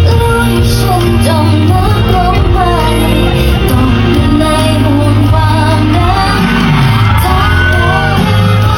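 Pop song with a sung melody that bends up and down over a heavy, steady bass line.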